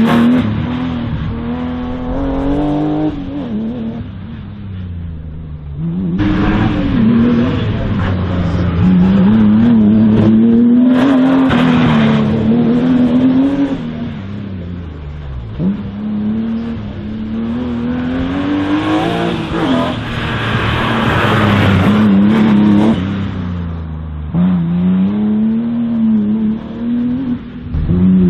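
A slalom race car's engine is driven hard through the course. Its revs climb and then drop sharply several times as it accelerates, shifts and brakes between the gates.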